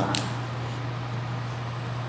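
Room tone: a steady low hum with faint hiss, and the tail of a spoken word at the very start.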